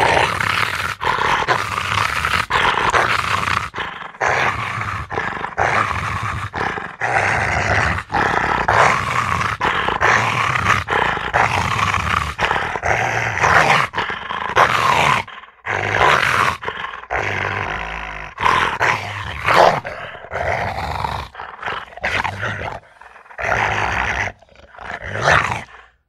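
Rottweiler growling in long stretches broken by short pauses, which come more often in the second half.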